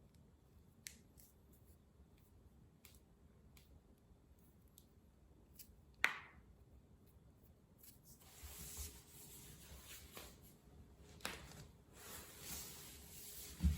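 Body joints being cracked: a few small clicks, then one sharp crack about six seconds in. After that comes rustling of clothing and skin, with another crack and a low thump near the end.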